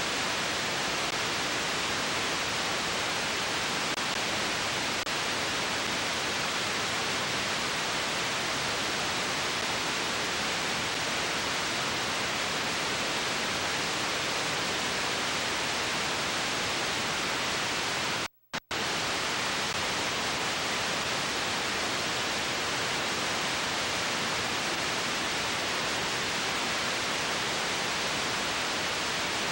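Steady hiss of analog television static: white-noise snow with no picture or programme sound. It cuts out for a split second about eighteen seconds in, then resumes.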